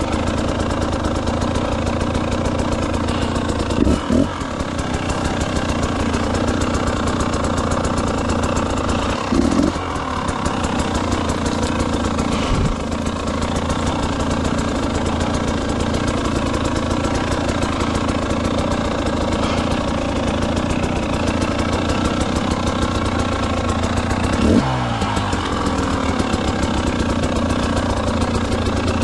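Motorcycle engine running steadily, with brief changes in pitch and knocks about 4, 10 and 25 seconds in.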